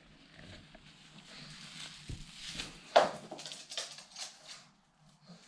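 Pug puppy scampering across a wooden floor and rug, its paws pattering in light scattered taps. About three seconds in there is one sharp, short, loud sound.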